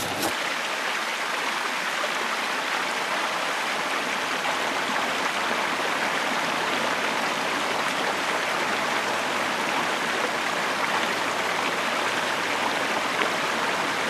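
Shallow creek water running steadily over rocks and a small cascade.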